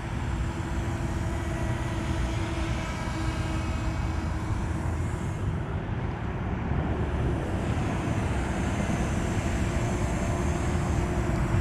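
Small DJI Mini 2 quadcopter hovering nearby, its propellers giving a steady buzzing whine that weakens around the middle and comes back near the end, over a low steady rumble.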